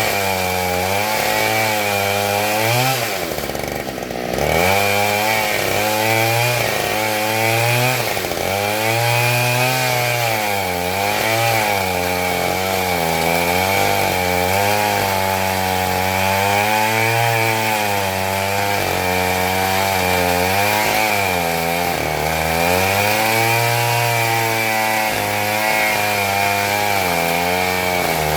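Husqvarna 572 XP two-stroke chainsaw with a ripping chain cutting lengthwise through a black locust log, the engine pitch rising and falling with the load. Its pitch and loudness drop sharply about three to four seconds in, then recover.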